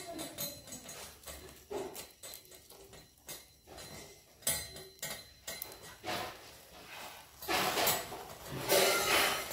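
Skewers of paneer and capsicum tikka tapping and clinking against the wire grate of a small portable grill, with several bursts of hissing and sizzling from the fire flaring under them in the second half.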